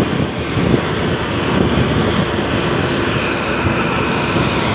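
Steady drone of an intercity bus's diesel engine and exhaust heard from close behind, mixed with road and traffic noise from riding alongside it.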